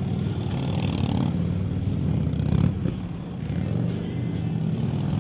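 Harley-Davidson police motorcycles' V-twin engines running at low speed through tight cone turns, the throttle easing off and on, with a dip near the middle.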